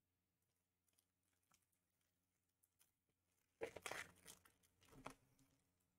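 Near silence with a few faint ticks, then about three and a half seconds in a short run of crinkling and rustling as a hockey card pack is handled, lasting about two seconds.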